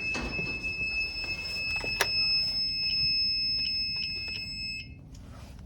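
Interlogix NetworX NX-8 alarm system's piezo sounder giving a steady, high-pitched tone, with a few short clicks near the end. The tone cuts off suddenly about five seconds in as the system is disarmed.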